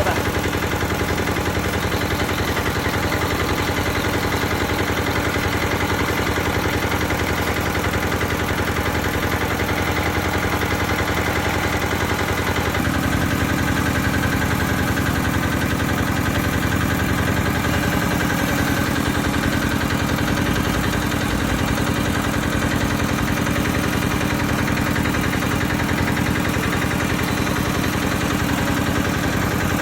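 Engine-driven YBM-05DA single-piston soil-test drilling rig running steadily, its tone shifting about 13 seconds in.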